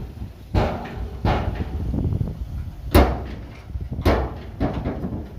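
Heavy earthmoving machinery working: a low engine rumble with repeated loud metallic bangs and clanks, the loudest about three seconds in.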